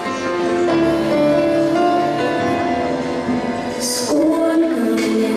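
Vocal group singing a song in close harmony, several voices holding long notes together, with a sharp hissing consonant near the end.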